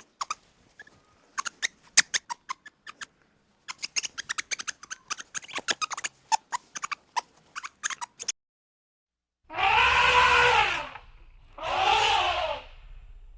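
A quick, irregular run of sharp clicks and taps for about eight seconds, then two long, drawn-out calls from a farm animal, each about a second and a half.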